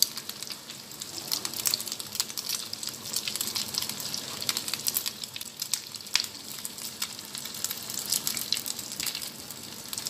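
Beaten egg with onion and green chilli frying in hot oil in a nonstick pan: a steady sizzle with many small crackles and pops, the egg freshly poured into oil that is already hot.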